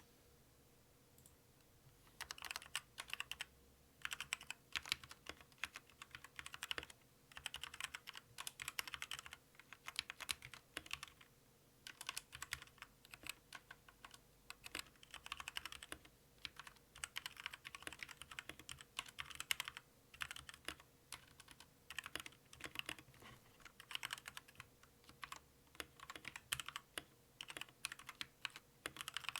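Typing on a Zet Gaming Blade Pro mechanical keyboard with Kailh Red linear switches: rapid runs of key clicks in bursts with short pauses, starting about two seconds in.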